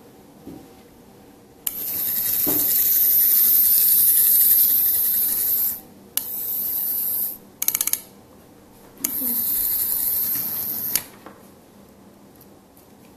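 Small N scale locomotive motor running under PWM power in three bursts of a high, scratchy whirr that start and stop abruptly: the first lasts about four seconds and swells, the next two are shorter. Just before the last burst comes a quick rattle of clicks.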